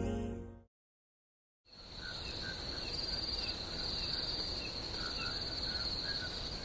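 Background music fades out, and after about a second of silence crickets start up with a steady, high-pitched trill. Faint short chirps repeat beneath it.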